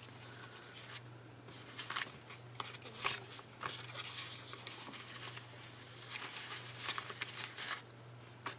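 Sticker sheets and paper being handled and sorted through: scattered soft rustles and short clicks, over a steady low hum.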